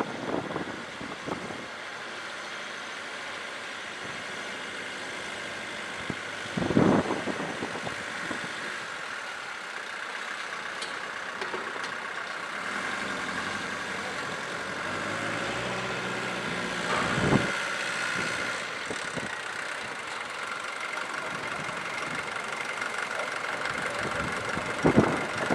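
Wismar railcar's engine running steadily at low revs as the railcar moves slowly and stands. The engine note rises briefly about two-thirds of the way through, and there are a few dull thumps.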